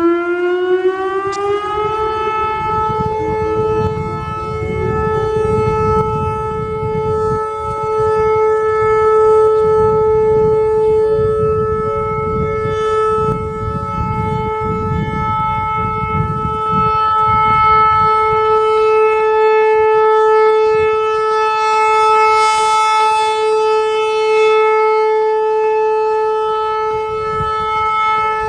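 Whelen Vortex R4 rotating outdoor warning siren (435 Hz model) sounding its alert signal: the pitch winds up over about two seconds, then holds one steady tone. Its loudness slowly swells and fades as the rotating horn sweeps round.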